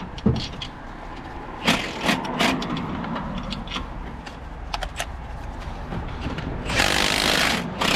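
Scattered metal knocks and clinks of tools and bolts, then a cordless impact gun run in one burst of about a second near the end.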